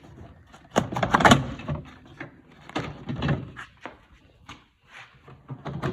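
Clunks and rattles of a car tail light assembly being tugged and worked at to free it from the body, in several separate bursts of knocking.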